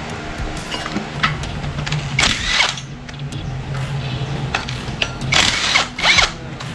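Handheld power tool run in two short bursts about three seconds apart, with a steady low hum between them and scattered sharp clicks and clinks of metal parts.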